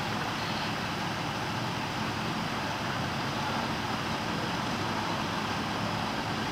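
Steady street background noise: an even rumble and hiss with no distinct events.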